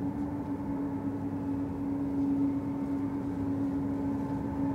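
Boeing 777-200's twin turbofan engines at taxi idle: a steady hum with a held mid-pitched tone, growing slightly louder about two seconds in.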